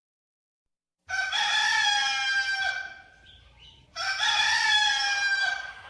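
A rooster crowing twice. Each crow is a long call of about two seconds, the first starting about a second in.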